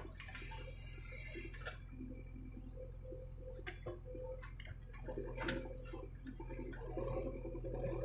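JCB backhoe loader's diesel engine running steadily while the backhoe digs, with scattered clicks and knocks. About five seconds in the machine's sound grows louder and busier.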